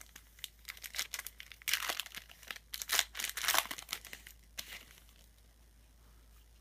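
Trading-card packaging crinkling and rustling as it is handled, a quick run of crackles loudest in the middle that stops a little before five seconds in.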